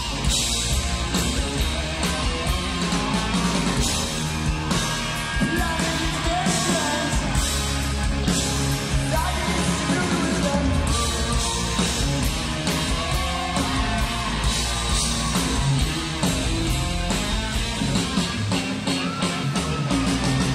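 Live heavy-metal band playing loud and full-on, with distorted guitar, bass and pounding drums under a singer's shouted, sung vocal lines.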